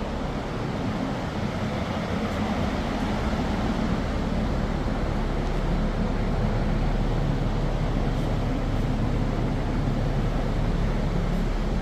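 A steady low hum with an even rushing noise over it, getting slightly louder over the first few seconds and then holding.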